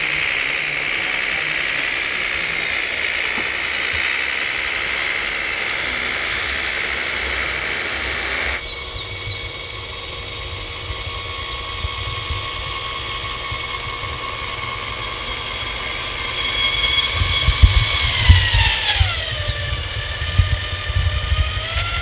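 Scale RC trucks' electric drive whining steadily as they crawl. After a cut, an RC Mercedes Actros tipper in gravel whines on, its pitch falling near the end, over loud crunching knocks from the gravel under its wheels.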